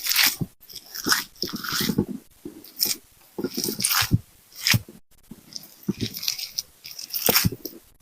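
Crisp food being bitten and chewed close up, in sharp, irregular crunches about one or two a second.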